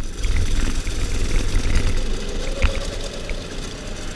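Dirt bike engine running while riding, over a heavy low rumble, its pitch rising and falling briefly about halfway through; a single sharp knock shortly after.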